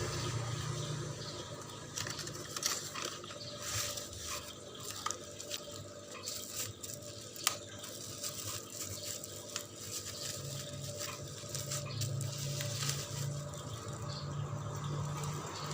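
Hands handling a small package: irregular rustling with sharp clicks and taps, busiest from about two seconds in to near the end.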